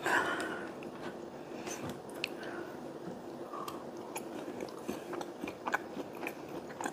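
Close-miked chewing: a person eating with her mouth closed, with soft wet mouth clicks and smacks scattered throughout.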